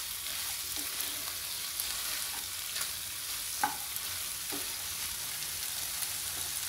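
Cauliflower florets and green peas frying in oil in a non-stick pan, a steady sizzle, stirred with a wooden spatula that gives a few light scrapes and taps against the pan near the middle. The cauliflower is cooked through.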